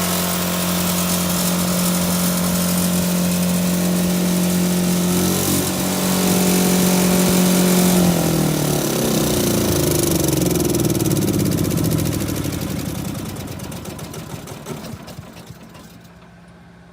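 Airman PGW150SI engine-driven welder running at a steady speed. About eight seconds in, the engine is shut off: its pitch falls and the sound dies away over several seconds.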